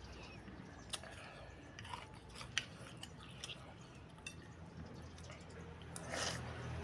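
Close-miked chewing of small beef meatballs and spicy noodles, with scattered wet mouth clicks. One sharp click about two and a half seconds in is the loudest, and a short louder wet burst comes near the end.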